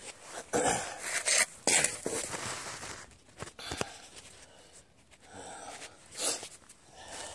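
A man breathing hard and grunting in several short noisy bursts as he strains to shift a heavy standby generator by hand.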